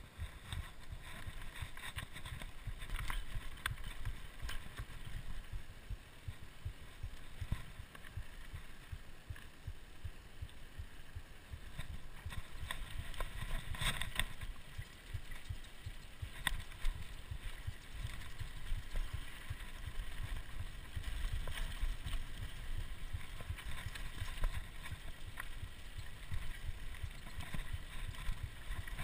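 Mountain bike riding over a rough dirt and rock singletrack: a steady rumble of the tyres and frame over the ground, with frequent rattles and clatters of the bike over bumps.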